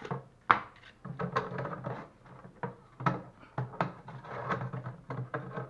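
Rigid plastic water jug and its cap being handled: irregular knocks, clicks and scraping of hard plastic, with one sharp click about half a second in.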